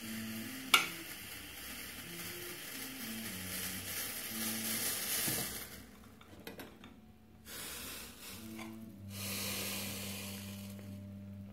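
Steady hiss of a gas burner and Turkish coffee simmering up in a stainless steel cezve, with one sharp click about a second in. The hiss drops away about six seconds in as the flame goes off. Near the end a softer rush comes as the coffee is poured into a small cup.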